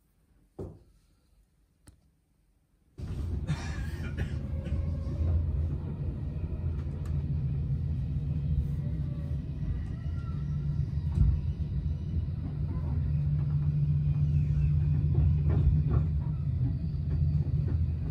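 A soft thump, then a steady low mechanical rumble that starts abruptly about three seconds in and runs on evenly.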